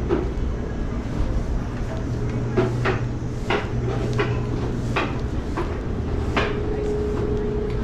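City ambience: a steady low mechanical hum with a string of sharp clicks and knocks at roughly half-second to one-second intervals, and a steady higher hum coming in about six seconds in.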